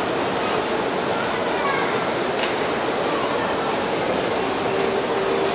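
Skis sliding and scraping steadily over groomed snow, an even rushing hiss, with faint voices of other people in the background.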